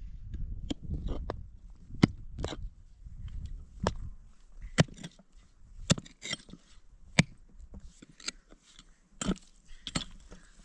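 A series of sharp knocks, irregularly spaced about one a second, with faint crackling between them.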